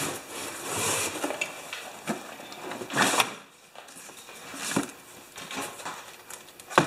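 Cardboard box being lifted down from a high shelf and slid onto a wooden workbench: scraping and rustling with several knocks, the loudest about three seconds in and a sharp click near the end.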